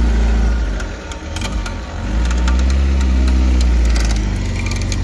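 Off-road 4x4 engine revving. It rises and holds, dips about a second in, then holds high again before easing near the end, with scattered sharp clicks and knocks over it.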